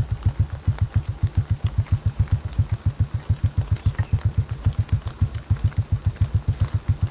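Small engine idling with a steady, even low thumping, about six or seven beats a second.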